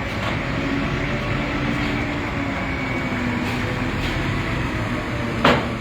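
Steady engine rumble with one sharp knock near the end.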